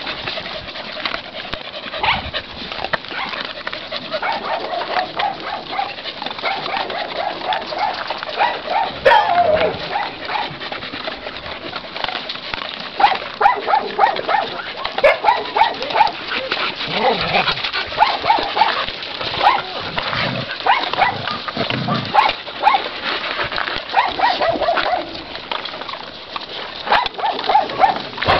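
Several dogs giving many short barks and yelps, over a steady scatter of clicking and crunching from dry kibble being eaten out of bowls.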